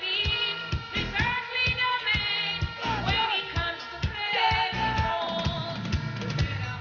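Gospel song played through a sound-clash sound system: singing voices over a steady beat.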